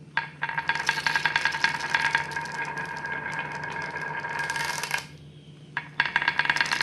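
Marbles rolling and clattering down a marble run track: a dense rattle of rapid clicks with a steady ringing tone. It breaks off for about a second around five seconds in, then starts again.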